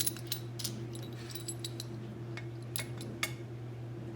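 Scattered light clicks and clinks of small metal tools and parts being handled and set down, over a steady low hum.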